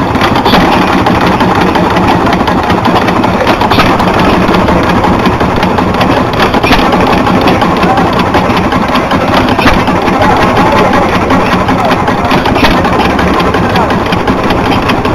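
Small single-cylinder hit-and-miss stationary engine running, firing only every few seconds as the governor lets it coast on its flywheel between power strokes, over a steady loud background noise.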